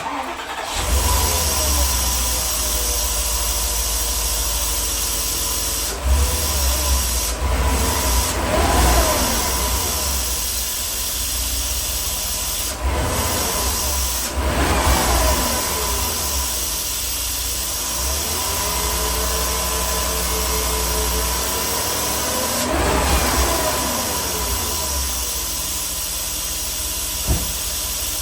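2003 Porsche Cayenne Turbo's twin-turbo 4.5-litre V8 running, revved up and back down a few times, with a steady high tone over the engine. This is the odd noise that began after coolant hoses were replaced, which the owner suspects is turbo related.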